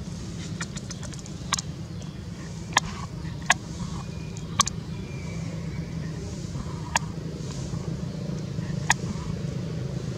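Steady low outdoor rumble, with about half a dozen sharp clicks scattered through it.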